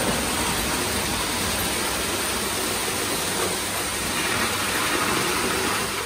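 Lionel O gauge NW2 diesel switcher model running on three-rail tinplate track: the steady noise of its motor and metal wheels on the rails, which drops off suddenly near the end.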